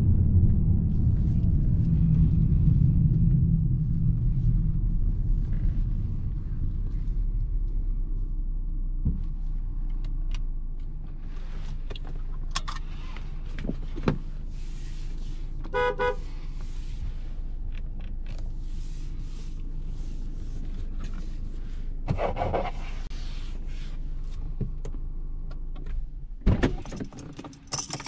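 Peugeot 508 PSE plug-in hybrid: a low engine and road rumble fades over the first ten seconds into a quiet steady hum. A short electronic beep comes about halfway through, and a loud thump near the end.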